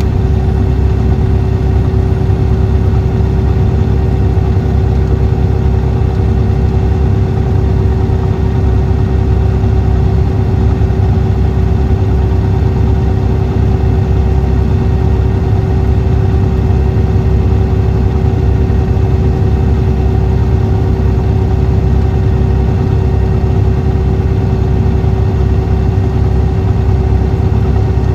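The 2014 MCI D4500CT coach's Cummins ISX 11.9 L six-cylinder diesel engine running steadily, a deep rumble with one constant hum and no change in pitch.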